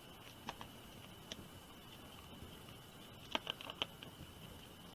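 Faint clicks and taps of a small screwdriver and a machine screw against a plastic base plate during hand assembly: a couple of single ticks, then a short cluster of quick ticks about three and a half seconds in.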